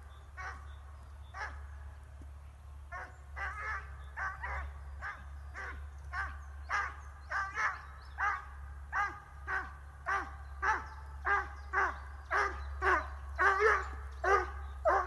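Hound giving tongue on a hare's trail: repeated baying barks, a few spaced ones at first, then about two a second and growing louder through the second half.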